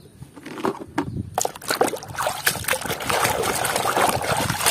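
Hands sloshing and scrubbing muddy plastic toys in a basin of water: a few light knocks at first, then continuous splashing and sloshing from about a second and a half in.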